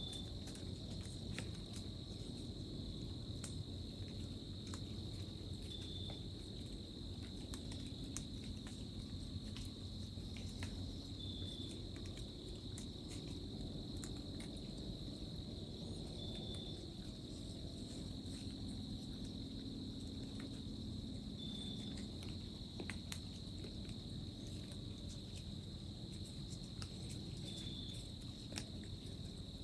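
Steady chorus of insects, a continuous high trill, with a short note repeating about every five seconds and scattered faint ticks.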